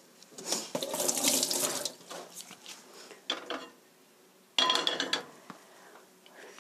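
A kitchen tap runs briefly, for about a second and a half. A few seconds later a frying pan clatters down onto the metal grate of a gas stove with a short, ringing clank.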